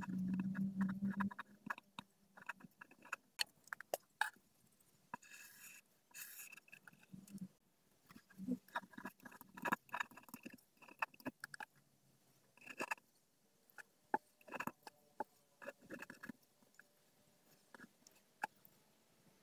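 Pen writing on paper: short, irregular scratching strokes and light taps of the tip, with a louder low hum in the first second or so.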